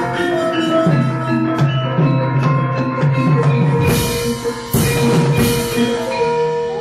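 Javanese gamelan playing: ringing metallophone notes over low drumming, with three bright metallic clashes between about four and five and a half seconds in.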